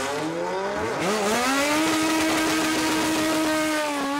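Drag-racing cars, a Honda Civic hatchback and a VW Beetle, launching from the start line. The engine note rises sharply about a second in and then holds a high, steady pitch at full throttle.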